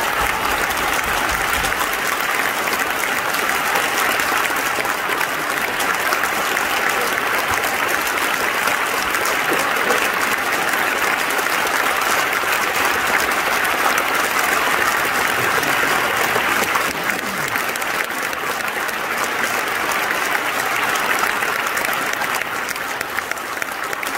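Audience applauding steadily, easing off a little about two-thirds of the way through.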